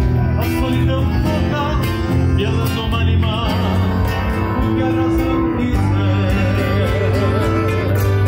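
Live gaúcho folk music: a piano accordion, a nylon-string acoustic guitar and an electric bass play together while a man sings held, wavering notes.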